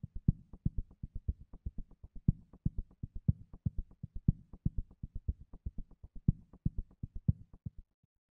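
Credits music: a percussive pulse of short low knocks, about three a second with a stronger accent each second, stopping abruptly near the end.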